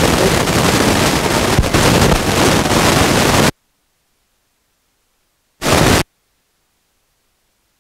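Loud, even rushing of wind blasting the microphone on a boat. It cuts off abruptly about three and a half seconds in to dead silence, with one more short burst of the same noise a couple of seconds later.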